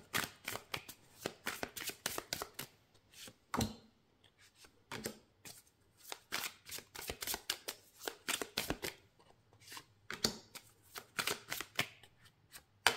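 A Gilded Tarot deck being shuffled by hand, the cards giving runs of quick, sharp clicks with short pauses near four and ten seconds in. Cards are dealt one by one onto a table.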